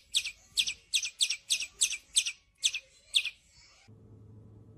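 Birds giving rapid, sharp, high chirps, about four a second, the angry calls of agitated birds. The chirps stop about three seconds in, and a faint low steady hum follows.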